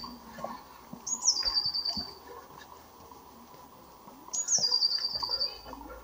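A songbird singing the same short phrase twice: a high note that slides down into a rapid trill of repeated notes, each phrase about a second long, the first about a second in and the second near the end.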